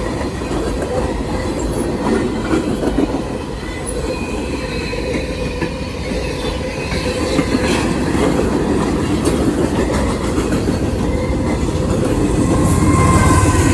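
Freight train cars rolling along the rails, wheels clacking over the joints, with some wheel squeal that grows a little louder near the end.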